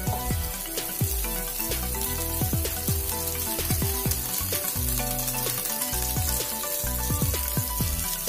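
Ground spice paste sizzling as it fries in oil in a wok, with background music playing over it.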